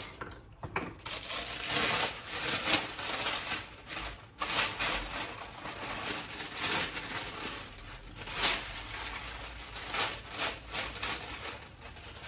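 Baking parchment paper rustling and crinkling in irregular bursts as a sheet is pulled off the roll and smoothed out flat.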